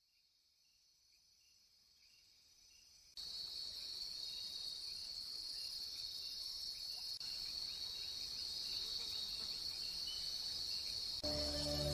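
Crickets chirping. A faint, slow chirp fades in, then a steady high-pitched trill comes in much louder about three seconds in. Music starts near the end.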